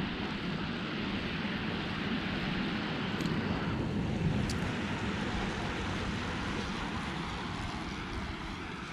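Wind buffeting the microphone: a steady rushing hiss with a low rumble underneath.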